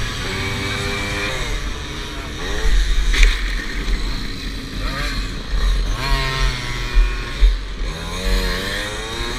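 Tomos Automatic moped's small two-stroke engine, heard from on board, revving up and falling back several times as it accelerates out of corners and slows into them, with heavy wind buffeting on the microphone.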